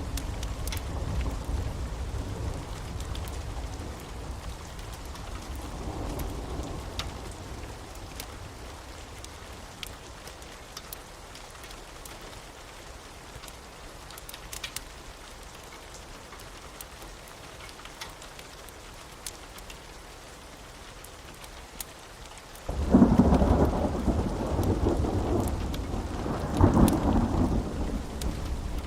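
Thunderstorm: steady rain with scattered drop ticks and rolling thunder. A rumble fades out over the first several seconds, and after a quieter stretch of rain a sudden loud thunderclap breaks about three-quarters of the way through, rolling on with a second swell.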